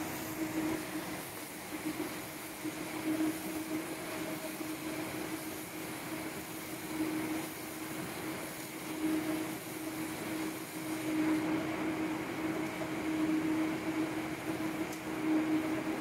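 Combined silage round baler and film wrapper running: a steady mechanical hum with a droning tone that swells and fades every couple of seconds as the bale is wrapped in stretch film.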